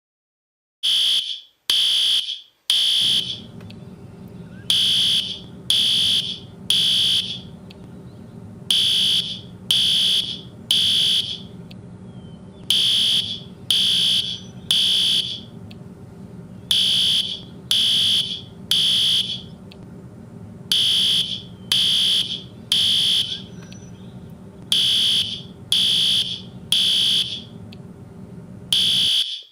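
Fire alarm sounding the three-beep evacuation pattern: loud, high-pitched beeps in groups of three, the group repeating about every four seconds, with a steady low hum underneath from about three seconds in.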